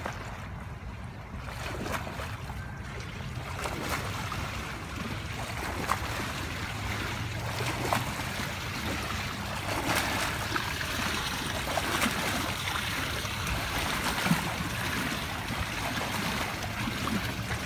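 A swimmer's front-crawl strokes and kicks splashing in a pool, growing louder as she swims closer, with a sharper splash every second or two, over a steady low rumble.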